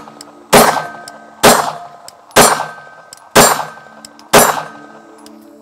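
Glock 19 9mm pistol with a Lone Wolf AlphaWolf drop-in barrel firing five shots about a second apart while test-firing mixed ammunition. Each shot is a sharp crack with a short ringing tail.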